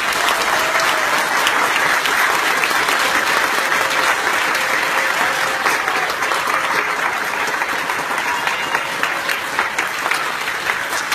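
Audience applauding, steady throughout and easing slightly near the end.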